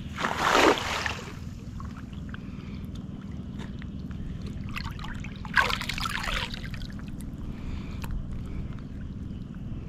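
Water splashing twice, briefly, about half a second in and again around five and a half seconds in, over a steady low rush.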